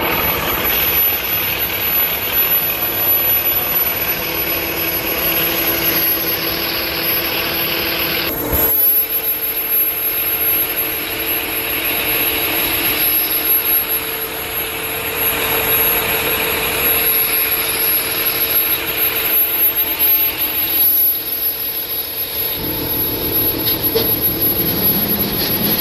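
John Deere 350G excavator's diesel engine running steadily. About eight seconds in there is a sudden break, after which the engine's steady note sits higher.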